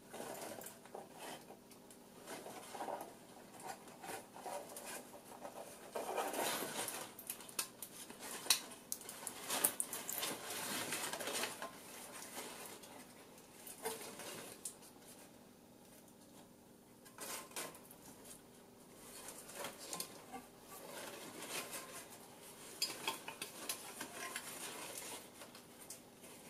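Handling noise from stiff circuit boards and their flexible ribbon cables being turned over in the hands: scattered light clicks, taps and rustles, busiest in the middle stretch.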